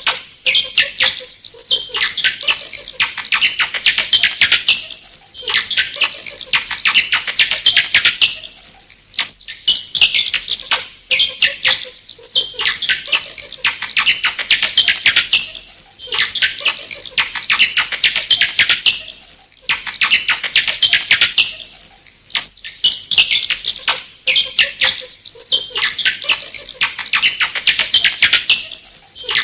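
Bats chittering and squeaking: rapid, high-pitched runs of calls lasting about two seconds each, with brief pauses between them.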